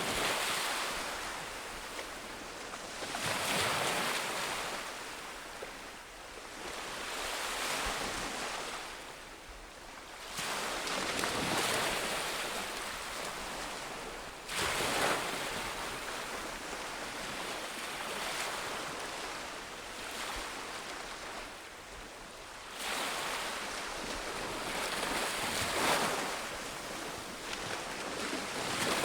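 Ocean surf: waves breaking and washing up a beach in repeated swells a few seconds apart, one breaking more sharply about halfway through.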